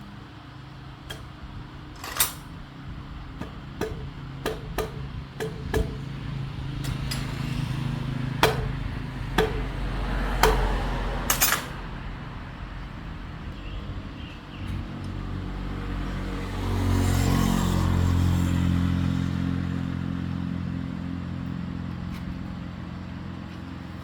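A motor running with a low hum, growing louder about two-thirds of the way through. Sharp clicks and knocks come at irregular moments in the first half.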